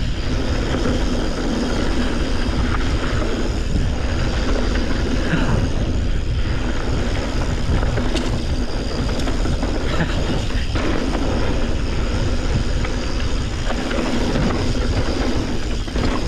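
Mountain bike descending a packed dirt trail at speed: knobby tyres rolling and rattling over the ground, with steady wind rushing over the camera's microphone.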